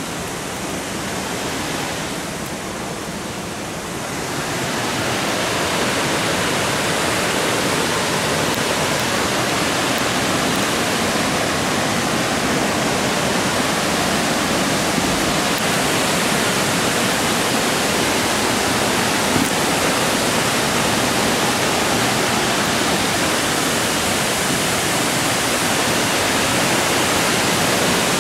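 Steady rush of water from a waterfall, growing louder about four seconds in and then holding steady.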